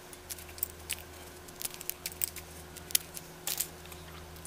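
Scattered small ticks and clicks of a fine screwdriver working tiny screws into an SG90 micro servo's plastic case, irregular and faint.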